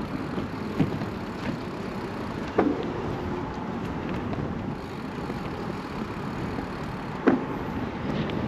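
Steady wind and movement noise on the microphone, broken by three sharp knocks: one just under a second in, one about two and a half seconds in, and one near the end.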